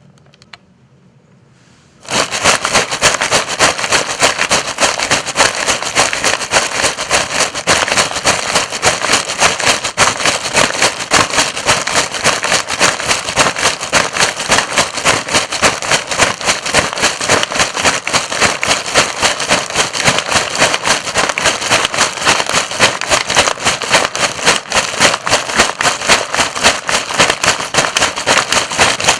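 Dry forest leaves crunching and crackling underfoot, a loud, dense, continuous crackle that starts suddenly about two seconds in.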